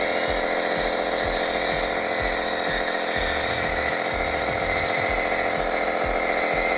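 A 1/14 scale RC bulldozer's electric motors and gearing whine steadily while it pushes dirt, with irregular low knocks underneath.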